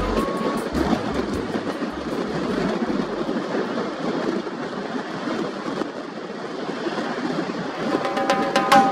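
Steady rushing noise with no speech. The bass beat of a reggae track dies away in the first few seconds. Near the end the next music track starts to come in.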